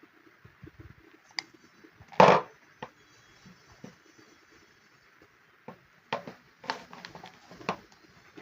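Handling noise: scattered clicks and knocks, with one louder thud about two seconds in and a cluster of knocks near the end. The drill's motor is not running.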